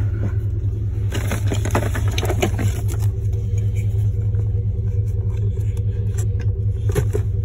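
A vehicle's engine idling with a steady low hum. Over it come scrapes and knocks as light bars and other things are handled in the cargo area, most of them between about one and three seconds in and again near the end.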